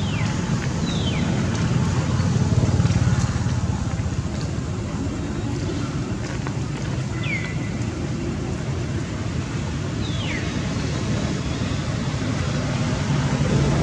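Steady low outdoor background rumble, with four brief high chirps that each fall in pitch: one at the very start, one about a second in, one past the middle and one about ten seconds in.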